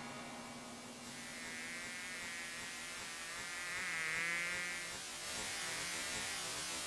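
Faint steady hum and hiss, with a wavering high-pitched tone that swells to its loudest in the middle and then fades away.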